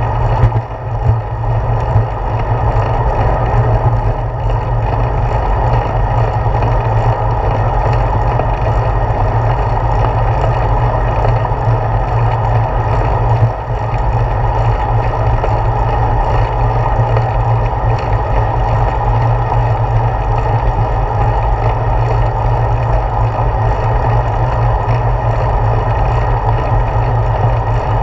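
Steady wind rush and road rumble from a bicycle in motion, carried through a handlebar camera mount. There are a few knocks from bumps in the first couple of seconds and one more about halfway through.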